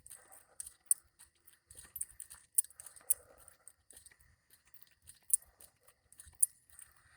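Faint, irregular crunching and clicking of footsteps on soft, loose road dirt.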